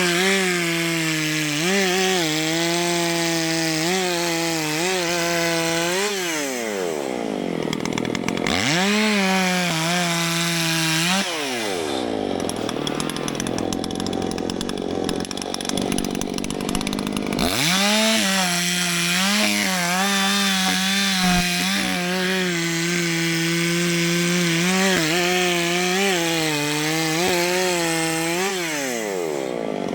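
Gasoline chainsaw cutting through a downed tree at full throttle, its pitch sagging and recovering as the chain loads up in the wood. It drops back toward idle about a third of the way in, throttles up again, and falls to a low idle near the middle before revving back up and cutting on.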